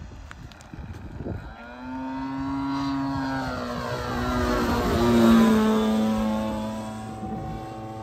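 EME60 60cc two-stroke petrol engine with a canister muffler, swinging a 22x10 propeller on a 3 m radio-controlled Cassutt racer, making a fast pass. The engine note grows from about two seconds in, is loudest a little past the middle, and drops in pitch as the plane goes by, then fades.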